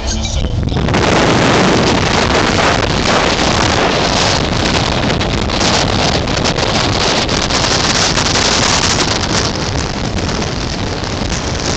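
Loud rushing wind and road noise from a moving car, buffeting the microphone. It comes in about a second in and stays steady.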